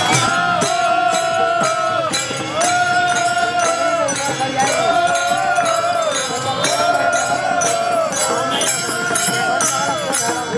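Group of Varkari devotees singing a devotional chant in long held notes, with small brass hand cymbals (taal) clashing in a steady rhythm.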